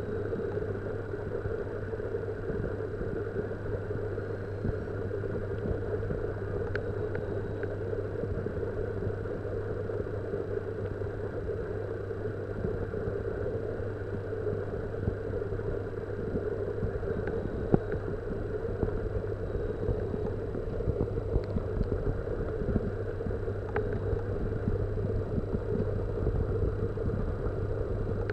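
Steady electric hum and rumble of a water pump, heard through an underwater camera, with a few faint clicks and one sharper click a little past halfway.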